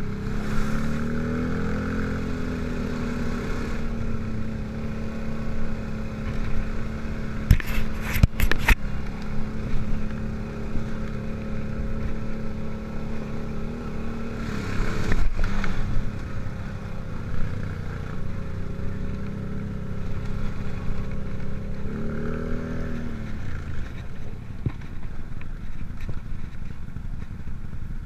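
ATV engine running under way at a steady speed, its pitch rising in the first couple of seconds and dropping about 22 seconds in. A quick run of sharp clattering knocks comes about eight seconds in, and another around fifteen seconds.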